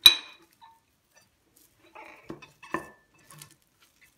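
A porcelain plate clinks sharply against a bowl, with a short ring, as it is pressed on top. About two seconds later come a few soft knocks and rustles as the cling-film-lined bowl of semolina halva is turned over onto the plate and set down.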